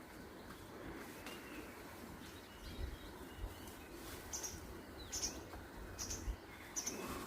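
A bird calling with short, high chirps repeated about once a second in the second half, over a faint steady outdoor background rumble.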